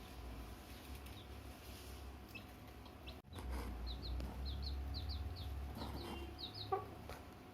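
Domestic chicken chicks peeping in short, high, falling chirps, coming thick and fast from about halfway in, with one brief lower call near the end and a steady low hum underneath.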